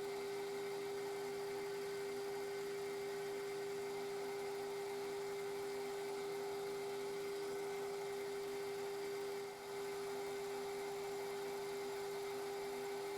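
Metal lathe running with a steady whine while a carbide boring bar takes a half-millimetre cut in a pulley bore; the level dips briefly about nine and a half seconds in.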